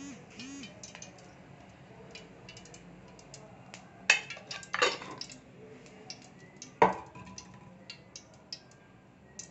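Ghee melting in hot oil in a metal kadai, with faint scattered crackling pops as it heats, and three loud knocks of metal utensils about four, five and seven seconds in.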